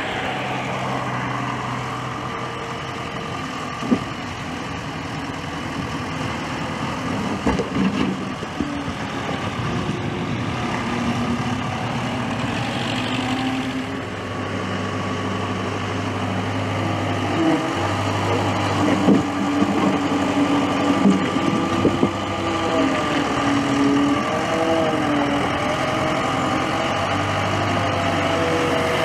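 Diesel engine of a Case skid-steer loader running and working, its pitch shifting now and then as it revs, with a few sharp knocks along the way.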